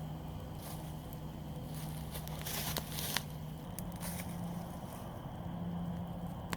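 Small campfire fed with dry pine and spruce needles crackling, with scattered sharp pops and a couple of brief hissing flare-ups a little before the middle. A steady low hum runs underneath.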